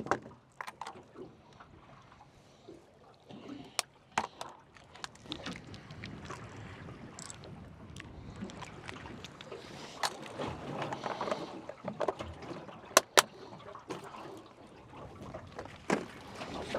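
Water lapping and sloshing against a small boat, with scattered sharp clicks and knocks, two close together about 13 seconds in.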